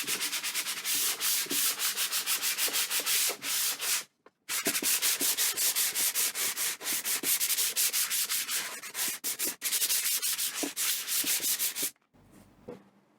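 Sandpaper rubbed by hand over a wooden tray in rapid back-and-forth strokes, a few strokes a second, with a brief pause about four seconds in and stopping near the end.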